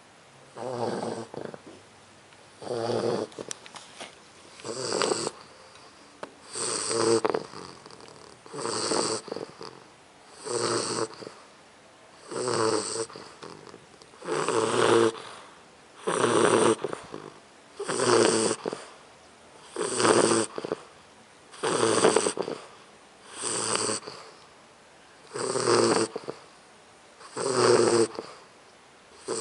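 A four-month-old English bulldog puppy snoring in its sleep, one snore about every two seconds in a steady rhythm.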